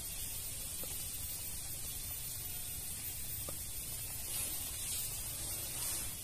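Steady hiss of shallow stream water running over a small riffle, with a couple of faint light ticks.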